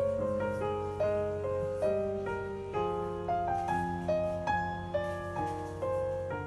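Background piano music: a slow melody of single struck notes, each ringing and fading, over a steady low tone.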